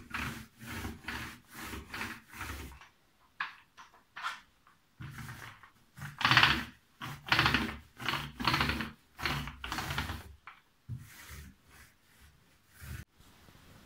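Small paint roller rolling back and forth over a cupboard door in quick rubbing strokes: one run of strokes, a pause of about two seconds, then a second, louder run.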